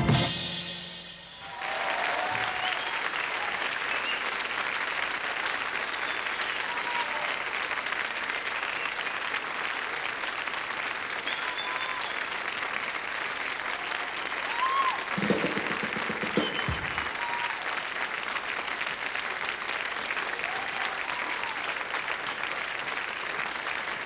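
A drum kit's last cymbal-and-drum hit ringing out at the end of a jazz number, then an audience applauding steadily, with a few short whistles.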